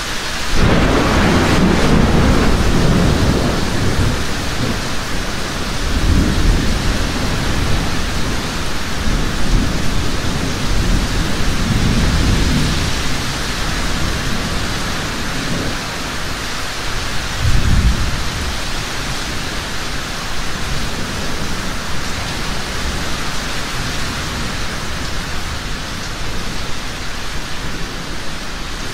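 Heavy rain falling steadily with rolling thunder. A loud thunderclap rumbles in just after the start for about four seconds, and further rolls of thunder come about six, twelve and seventeen seconds in, the last one short and sharp.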